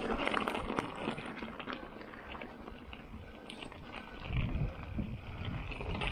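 Mountain bike rolling down a gravel singletrack: tyres crunching over loose stones with clicks and rattles from the bike. From about four seconds in, wind rumbles on the microphone as speed picks up.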